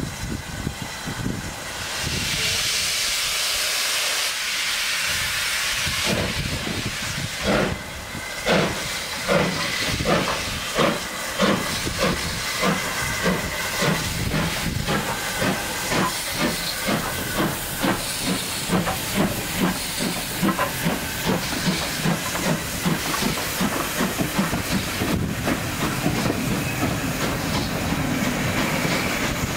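Ivatt 2MT 2-6-2 tank engine 41312 starting its train: a loud hiss of steam, then its exhaust beats, slow at first and quickening steadily to about two or more a second as it gathers speed.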